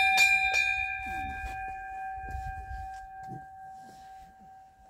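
Hanging brass temple bell struck three times in quick succession at the start, then ringing on with a clear, steady tone that slowly fades.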